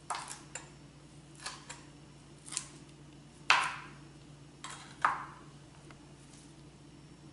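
Kitchen knife chopping cilantro on a cutting board: about nine sharp, irregular chops over the first five seconds, the loudest about three and a half seconds in.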